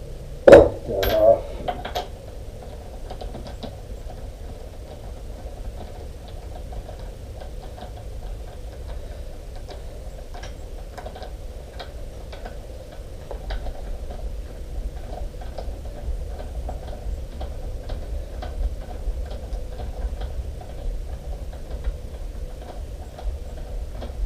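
Socket ratchet clicking in short irregular runs while a WP AER 48 fork cap plug is worked loose, with two louder knocks of metal parts about half a second and a second in.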